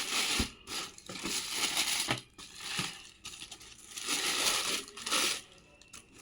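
Packaging being handled and crumpled, a dry crinkling in irregular bursts with brief pauses between them, from unwrapping a new pair of shoes.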